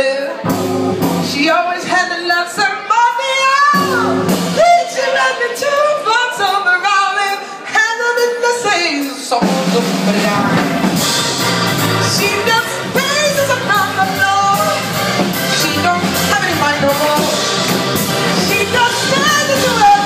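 A woman singing live with a small band. For the first half her voice carries over sparse backing; about halfway through the drum kit and keyboard come in fully under her singing.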